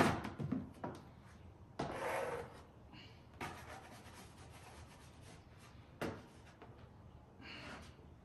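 Plastic dough-proofing box being handled: a sharp knock as the lid comes off and is set down. Then scattered rubbing and scraping as a dough ball is worked loose from the floured tray.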